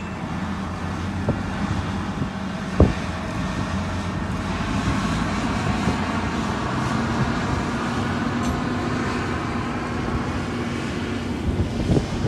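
A motor vehicle's engine running steadily with road or wind noise, with one sharp knock about three seconds in.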